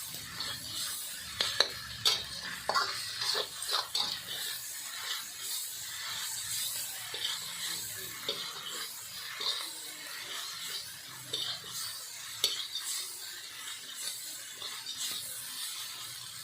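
Chicken chow mein being stir-fried in a pan: a steady sizzle with repeated scrapes and clinks of a metal utensil against the pan.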